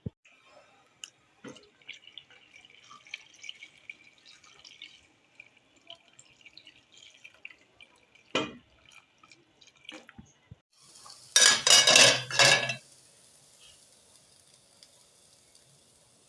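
Kitchen handling sounds while preparing meat for boiling: light clinks and knocks of pots and dishes, then a loud rush of water for about a second and a half, followed by a faint steady hiss.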